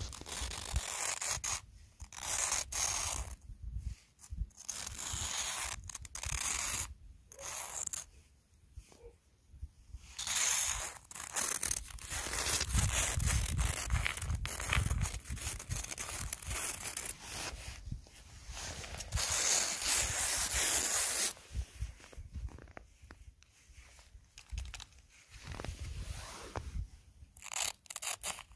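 Footsteps crunching through snow in an uneven series, with a few longer stretches of continuous crunching and scraping; the steps grow fainter near the end.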